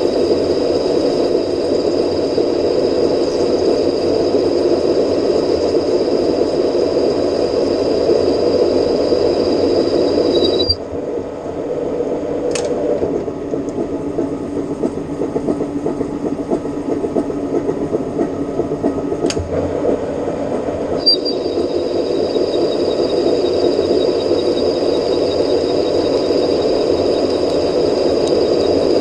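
Metal lathe running, with a steady high whine over its hum. The whine stops about ten seconds in and comes back about ten seconds later; two sharp clicks sound in the quieter stretch between.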